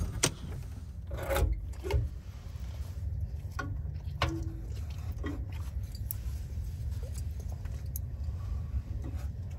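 Wood and kindling scraping and rubbing against the metal of a small stainless-steel camp wood stove as its firebox is loaded, with scattered light clicks and knocks over a low steady rumble.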